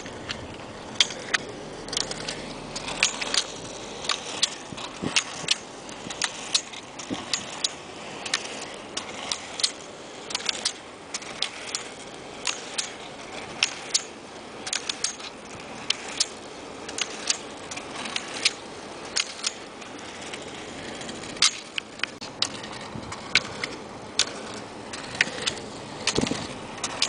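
Sharp clicks of roller-ski pole tips striking asphalt, irregular and about one or two a second, some in close pairs, over the steady hiss of a moving car's road noise.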